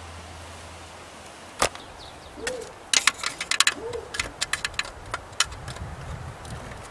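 Small sharp clicks and taps of hard plastic and metal as the old distributor cap is worked loose on the Chevy K3500's engine: a single click, then a quick run of them a second or so later. Two short low hoots sound in between, about a second and a half apart.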